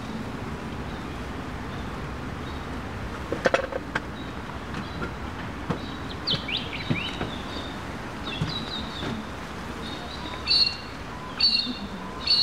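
Birds chirping, short high calls that come about once a second in the last few seconds. A sharp knock about three and a half seconds in is the loudest sound.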